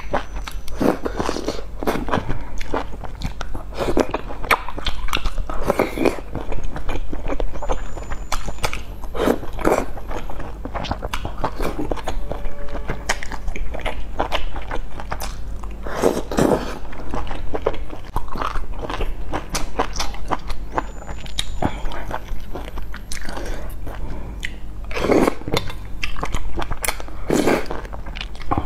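Close-miked eating sounds: chewing and slurping of noodles and broth from a bowl, with louder slurps every few seconds.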